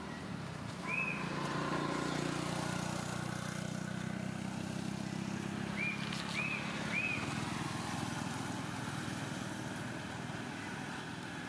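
A motor vehicle's engine hums steadily nearby, swelling about a second in and fading near the end. Short high chirps come once early and three times in quick succession around six to seven seconds.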